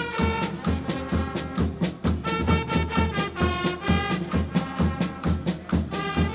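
Carnival band music with a steady, even beat and held notes.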